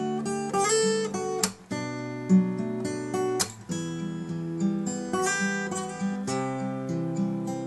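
Takamine ETN20C nylon-string acoustic-electric guitar being played: ringing chords that change every second or so, with short breaks about a second and a half in and about halfway through.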